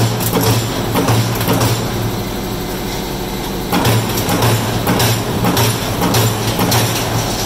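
Amada Pega 344-Q CNC turret punch press running: a clatter of rapid repeated punch strikes over a steady low hum.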